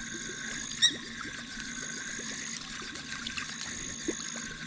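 Night chorus of frogs and insects: steady high-pitched trilling in runs of about a second, with faint trickling water and a brief sharp chirp about a second in.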